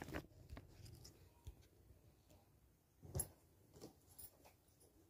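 Near silence: room tone, with a few faint clicks and one soft knock about three seconds in.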